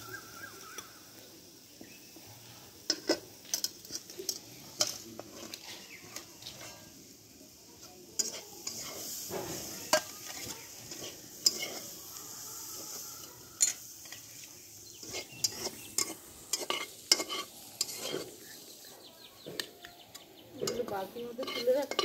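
Metal spatula scraping and clinking against an aluminium karai at irregular intervals as cooked sanche shak greens are scooped out into a bowl, over a faint sizzle from the pan.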